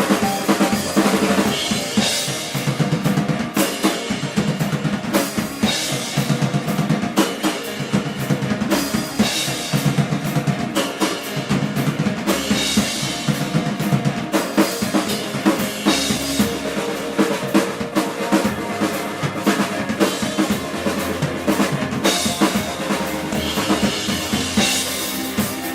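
Live band playing with a loud drum kit: a fast, steady beat on bass drum and snare, with cymbals washing in every few seconds over a low bass line.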